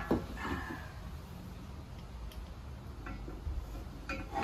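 Light metal clicks and ticks from fire pit parts and a screwdriver as screws are fitted: a sharp click right at the start, then a few faint ticks, with more small clicks near the end.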